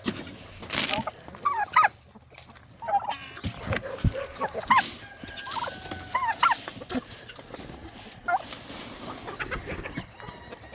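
Chickens and turkeys calling, short rising-and-falling calls scattered through, with a few knocks.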